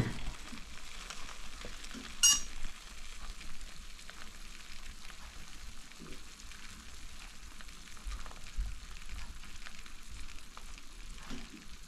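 Hot fat and juices sizzling in an air fryer basket under a freshly roasted whole chicken, a faint steady crackling hiss. A short sharp click about two seconds in.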